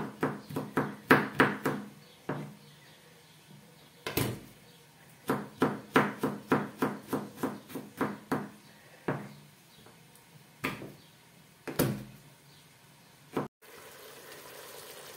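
Kitchen knife chopping garlic cloves on a plastic cutting board: quick runs of chops, about four a second, with pauses between runs. Near the end the chopping stops and a faint steady hiss is left.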